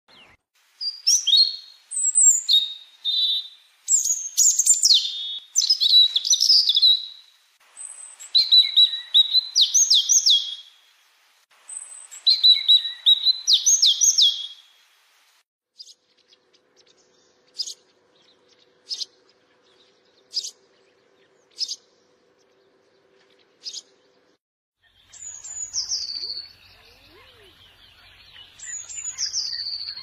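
Birds singing: rapid phrases of chirps and trills for the first fifteen seconds, then single short chirps about every second and a half, then clear whistled notes falling in pitch near the end.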